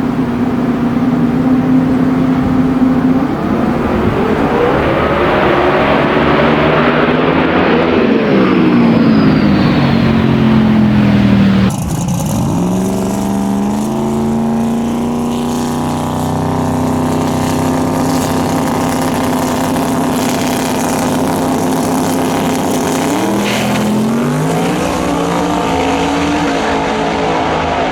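Drag-racing car engine running loud, its pitch climbing and then sinking back in long sweeps, with steady running in between and an abrupt change in the sound about twelve seconds in.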